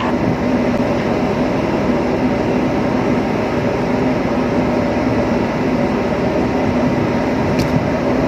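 Steady drone of a ship's engines and deck machinery, an even hum with a low tone held under it, and one short click near the end.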